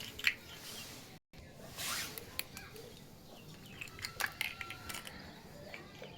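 Small plastic toy pieces clicking and tapping as they are handled, with a brief rustle about two seconds in. The sound cuts out for an instant just after the first second.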